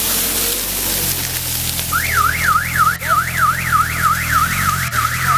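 A car alarm warbling, its pitch sweeping up and down about three to four times a second, starts about two seconds in. Under it, a UAZ off-roader's engine runs low and steady.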